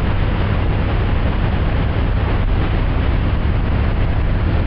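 Towboat engine running steadily at speed, a low rumble under rushing wind and water noise.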